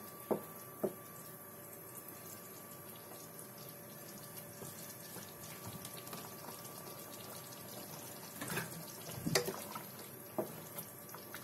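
Thick Manchurian gravy bubbling faintly in a kadai just after the gas is turned off, with a few knocks and scrapes of a wooden spatula against the pan, a couple about a second in and several more near the end.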